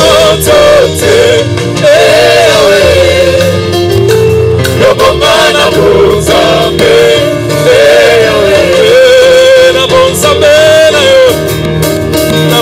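Live gospel worship music: a group of men and women singing together over a live band.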